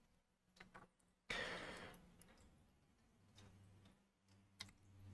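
Quiet handling sounds from a DVR circuit board: a few faint clicks from a plastic wire connector being worked, a brief rustle about a second in, and more light clicks near the end.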